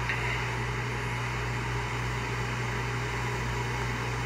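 A steady low hum with an even hiss over it, like a fan or air conditioner running, without change.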